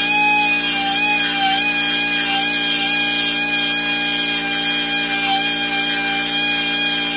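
Hand-held rotary grinder whining steadily as it deburrs casting flash from the top of a cast-iron Pontiac 455 cylinder head. Its pitch dips briefly a few times as the bit bites into the metal.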